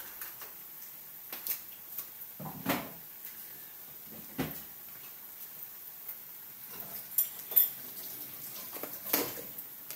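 Scattered clinks and knocks of dishes and cutlery being handled on a kitchen counter, with two sharp clinks close together late on.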